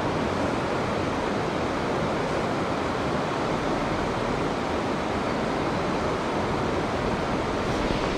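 Mountain stream water rushing steadily, an even, unbroken wash of noise.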